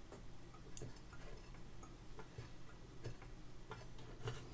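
Faint, scattered small clicks and taps as the radio's dial pointer and tuning mechanism are handled and moved by hand. A low steady hum sits underneath.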